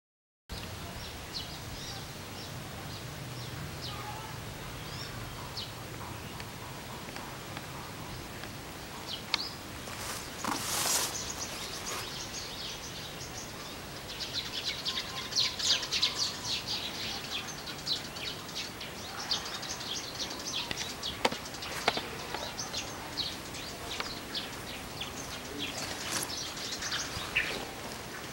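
Outdoor ambience of birds chirping over a steady background hiss, the chirping busiest from about halfway through, with a few sharp clicks.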